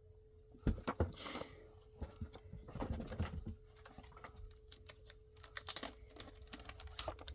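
Comic books being handled and shuffled: irregular taps, slides and rustles of paper and covers, starting about a second in, over a faint steady hum.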